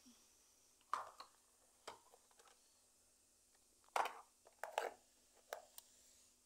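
Hands handling small plastic objects: faint scattered clicks and knocks, the loudest about a second in and about four seconds in.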